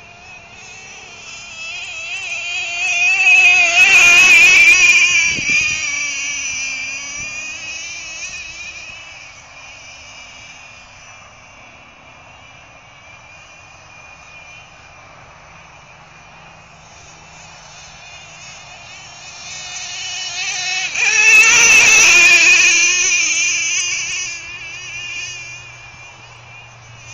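Small glow-fuel (nitro) engine of a custom-built RC truck running at high revs, a high-pitched whine that wavers in pitch. It swells loud twice as the truck passes close, a few seconds in and again about three-quarters of the way through, and fades as it runs farther off in between.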